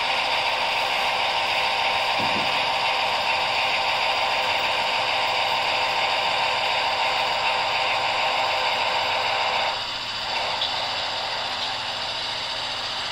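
Brawa V100 model diesel locomotive running slowly along the track: a steady mechanical whir with a hiss, which drops somewhat in level about ten seconds in.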